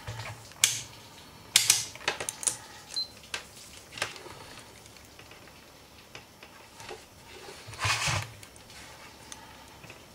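Irregular small clicks and rustles of hands handling a burnt resistor and a multimeter test probe, with a longer rustle about eight seconds in.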